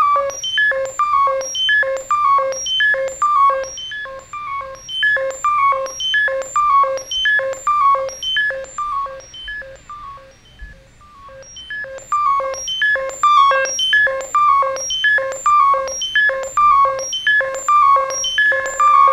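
Eurorack modular synth: a sequencer-driven VCO fed into the CV tuning input of an RF Nomad shortwave receiver module, used as a wave shaper, plays a fast repeating sequence of short pitched bleeps. The notes fade almost away about ten seconds in and come back about two seconds later.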